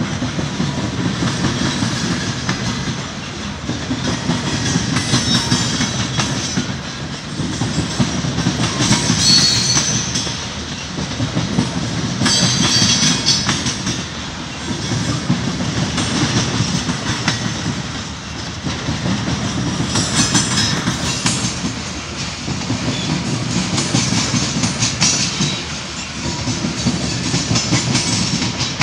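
Freight train of covered hopper cars rolling steadily past, its wheels clacking over the rail joints, with the loudness swelling every couple of seconds. A few brief, higher-pitched wheel squeals come through, about a third of the way in, just after that, and past the middle.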